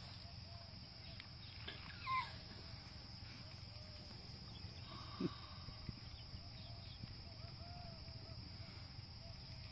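A short animal cry about two seconds in and a single dull thump about five seconds in, over a steady hiss with faint repeated chirps.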